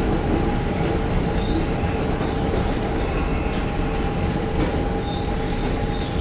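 Inside a former Tokyo Marunouchi Line subway car while it runs: a steady low rumble of wheels on the track, with a steady high whine held throughout.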